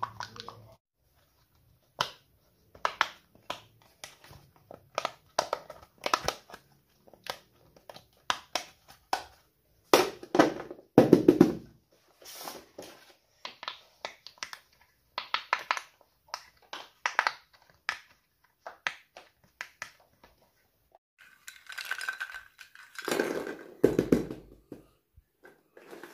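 Silicone pop-it fidget toy bubbles popping one after another as they are pressed, short sharp clicks with a few louder ones in the middle. Near the end comes a longer stretch of squeezing and handling of a squishy toy.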